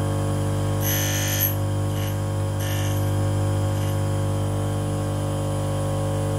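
Union tool and cutter grinder's motor running with a steady hum while an endmill's end is touched against the spinning cup wheel twice, about a second in and again near three seconds, each time a brief hiss of grinding. This is the grinding of a small primary relief onto the endmill's end cutting faces.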